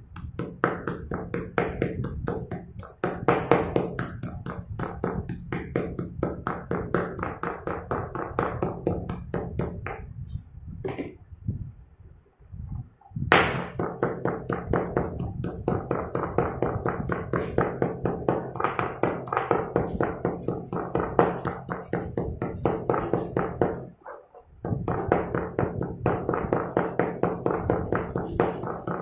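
Stone pestle pounding broken slate pencils to powder in a stone mortar: fast repeated crunching thuds, several a second, with two short pauses.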